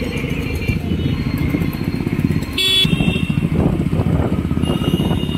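A new Yamaha motorcycle running on the move through street traffic, with wind rushing on the microphone. A vehicle horn toots briefly near the middle.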